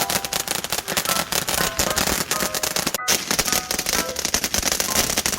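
A string of firecrackers going off, a rapid, dense, continuous crackle of small bangs.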